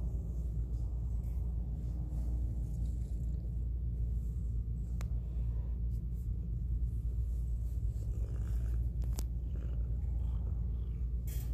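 Domestic tabby cat purring steadily in a low, even rumble, with a couple of faint clicks about five and nine seconds in.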